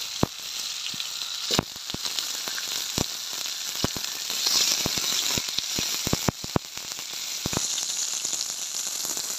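Murrel fish pieces shallow-frying in hot oil in a wide pan: a steady sizzle with scattered sharp pops and crackles, several in quick succession a little past the middle.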